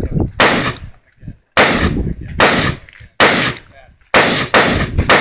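AR-15 carbine firing single shots, about eight in all, at a steady pace that quickens near the end, each crack followed by a short ringing tail.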